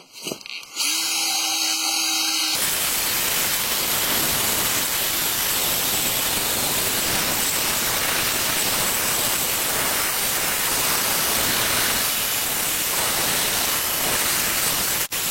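A handheld power tool cleaning rust and scale off a brake part down to shiny metal. It starts up about a second in, then runs steadily with a continuous hiss, broken by a brief pause near the end.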